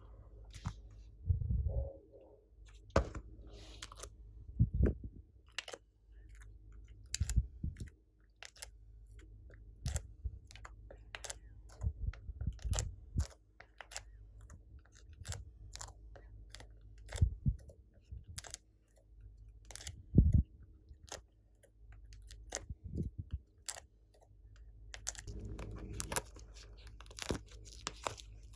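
Glossy slime being worked by hand, making irregular sharp sticky clicks and pops, with a few soft low squishes between them.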